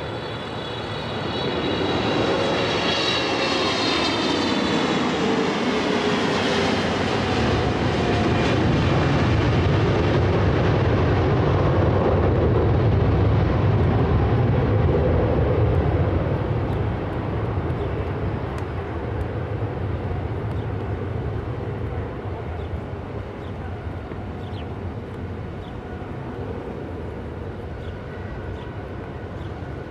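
Boeing 777 twin-jet on landing approach passing low overhead: a high engine whine that falls in pitch as it passes, then a loud low rumble that fades away over the second half.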